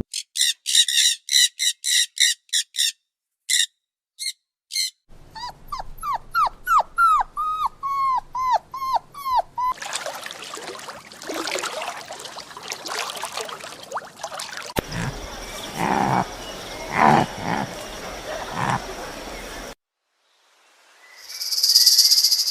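A run of different animal calls, cut one after another. First comes a quick series of high chirps, then a row of short squeaky calls, each dropping in pitch, then noisier stretches with some yips and whimpers. A short loud hissing burst comes near the end.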